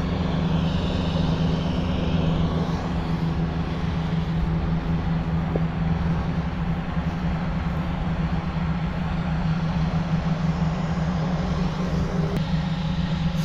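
Gas-engine inflator fan running steadily, blowing cold air into a hot air balloon envelope during cold inflation, before the burner is lit.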